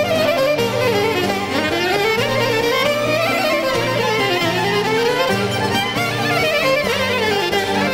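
Greek folk band playing a traditional dance tune: a clarinet carries a winding, ornamented melody that climbs and falls in long sweeps over a steady rhythmic accompaniment.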